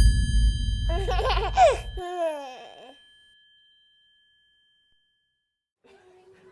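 A loud low whoosh that cuts off suddenly about two seconds in, a bright bell ding at the start that rings on for several seconds, and a short sliding laugh-like voice around the first two seconds. Then it goes near silent, with faint voices coming in near the end.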